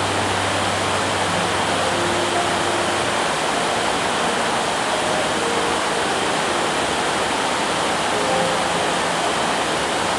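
Heavy rain falling in a steady downpour, with water pouring off the edges of corrugated metal roofs.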